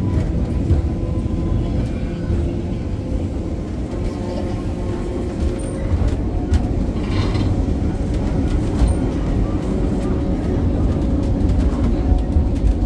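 Museum tram running on its rails: a steady low rumble with a faint hum, and a short higher screech about seven seconds in.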